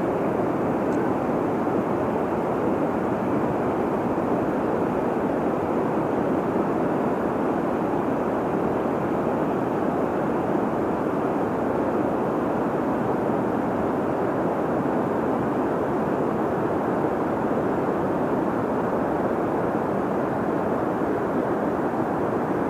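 Steady, unbroken rushing of fast river current tumbling over and below a low dam.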